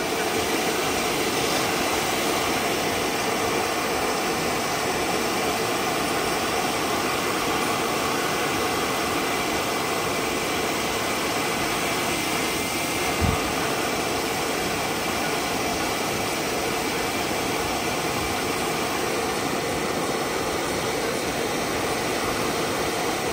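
Steady whooshing noise of a motor-driven air blower running, with one short thump about 13 seconds in.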